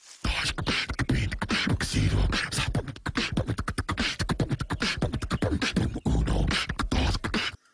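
Human beatboxing: a fast run of vocal kick-drum thumps, snare and hi-hat clicks in a quick rhythm, stopping abruptly near the end.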